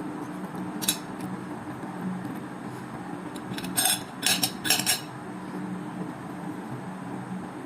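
Cutlery and dishes clinking: one clink about a second in, then a quick run of several clinks around the middle, over a steady low hum.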